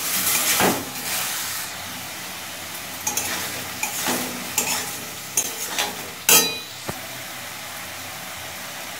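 Chopped tomatoes sizzling in hot mustard oil in a kadai while a metal spatula stirs and scrapes them around the pan. A steady frying hiss runs under several short scrapes and clinks; the sharpest clink, spatula against the pan about six seconds in, rings briefly.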